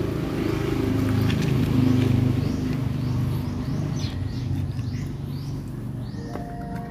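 A low, pitched engine drone swells about two seconds in and then eases off, while small birds chirp over and over.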